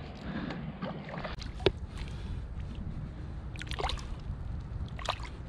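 Boots sloshing and squelching through shallow water and soft mud, with a few short, sharp splashes.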